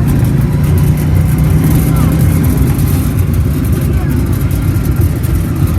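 A riding lawn mower's small engine running under way, with a heavy, steady low rumble.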